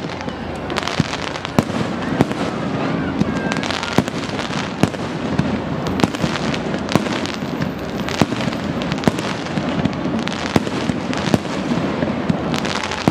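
Aerial fireworks display bursting, sharp bangs coming one after another several times a second over a continuous wash of noise.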